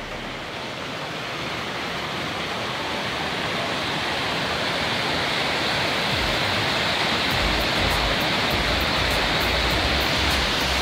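Steady rush of water at Iguazú Falls, a rocky stream giving way to the waterfalls pouring down the cliff, growing louder over the first five seconds or so and then holding steady.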